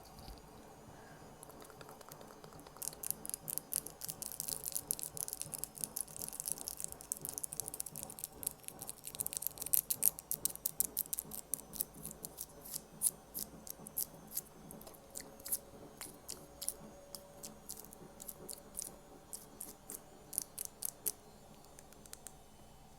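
Crisp, close-miked ASMR clicking. A fast, dense run of sharp clicks starts about three seconds in, thins to scattered clicks after the middle, and stops shortly before the end.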